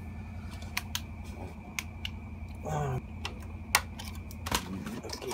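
Scattered light clicks and taps as hands handle a CRT TV chassis board and its parts, over a steady low hum.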